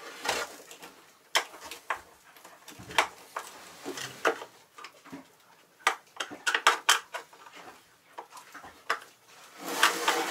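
Scattered clicks, taps and clinks of hand tools on screws and fittings as a panel is unscrewed, some coming in quick clusters, with quiet handling noises between them.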